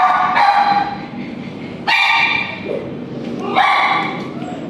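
Cat yowling in distress while held down for urinary catheterization: a long, loud, drawn-out cry already under way, then two more that break out suddenly about two and three and a half seconds in.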